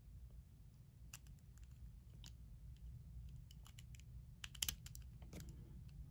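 Faint, scattered small metal clicks and taps from the parts of a vintage flat petrol lighter being handled and fitted back together, with a short cluster of clicks a little past the middle.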